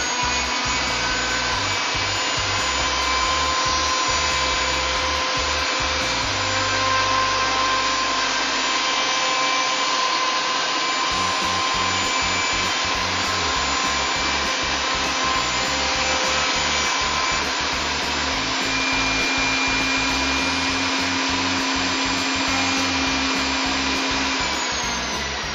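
Plunge router running at full speed with a steady high whine as its bit cuts a hinge mortise into a pine door jamb. The pitch begins to fall near the end as the motor is switched off and winds down.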